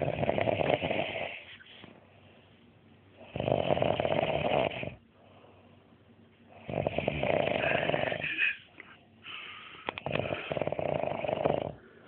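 A man snoring loudly in his sleep: four long snores, one about every three seconds, with quieter breathing between them.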